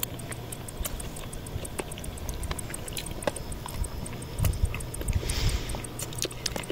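Crickets chirping in a fast, even pulse of several chirps a second, over a steady low hum, with a few faint knocks and a short hiss about five seconds in.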